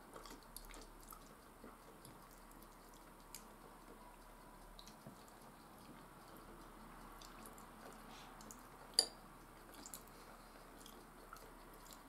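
Quiet eating of fried potatoes: soft chewing and small clicks of a metal fork against the bowl, with one sharper ringing clink about nine seconds in.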